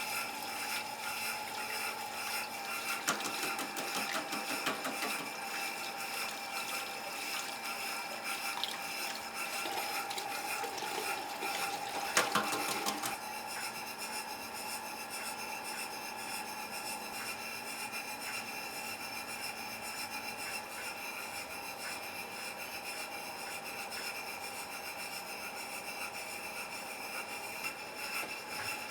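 Steady hum of kitchen equipment with irregular scraping and rubbing noises, and a brief louder clatter about twelve seconds in.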